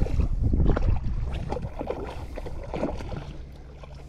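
Shallow water sloshing and splashing, busiest in the first second or so and then fading.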